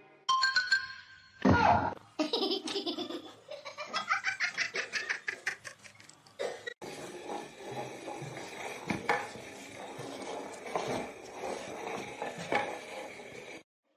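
A person laughing in quick, repeated bursts, followed after a cut by a noisier stretch with a few knocks.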